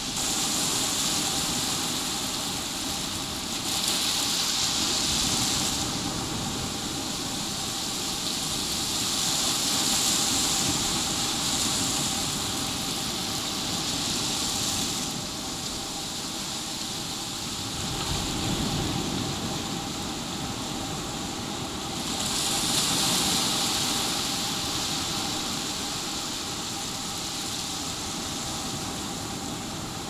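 Small ocean waves lapping onto a sandy beach: a continuous rushing hiss of surf that swells and fades as each wave breaks and washes up the sand, several times over.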